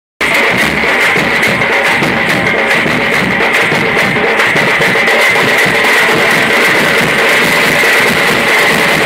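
Loud dance music with a fast, steady drum beat, cutting in after a split-second gap.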